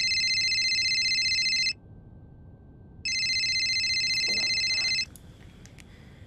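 Telephone ringing: two long trilling rings of about two seconds each, with a pause of just over a second between them.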